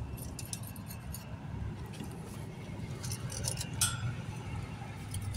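A motor runs steadily as a low rumble underneath. Over it come short scratching and clinking sounds of a mason's hand tool and gloved hand working the brick face, in two clusters, the sharpest just before four seconds in.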